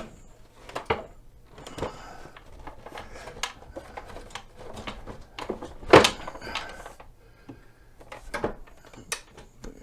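Irregular knocks, clunks and scraping as the rear section of a Pride Maxima mobility scooter is lined up and fitted back onto the front section, with one loud knock about six seconds in.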